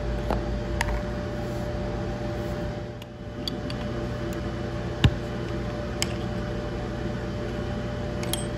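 A few sharp clicks and small metallic knocks as a straight router bit is handled, slipped into a router's collet and the collet nut is tightened with a wrench; the sharpest click comes about five seconds in. Under them runs a steady background hum with a faint constant tone.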